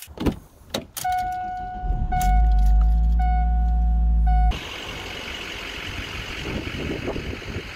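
Keys jingle and click as they are taken off a hook. Then a car's warning chime beeps in an uneven on-off pattern while the engine starts and runs with a low rumble. Both cut off abruptly about four and a half seconds in, giving way to a steady outdoor background hiss.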